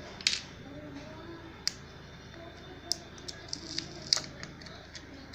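Scattered light clicks and taps, about eight at irregular intervals, the loudest about a third of a second in and just after four seconds in, typical of a smartphone and its packaging being handled.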